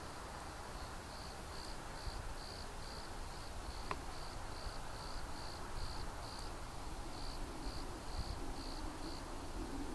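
A cricket chirping in a steady high-pitched rhythm, about two to three chirps a second, pausing briefly once, over a low rumble, with a single faint click about four seconds in.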